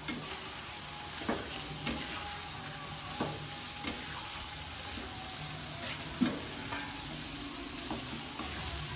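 Boiled urad dal and tomato masala sizzling in a non-stick wok as it is stirred with a plastic spatula, with irregular scrapes and taps of the spatula against the pan.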